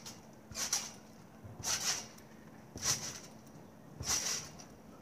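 Trampoline springs and mat sounding with each bounce: four evenly spaced bounces, a little over a second apart.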